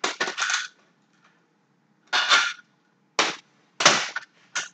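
About five short clatters and knocks, spread unevenly, from an aluminum folding lawn chair frame and its PVC arm and bolt hardware being handled.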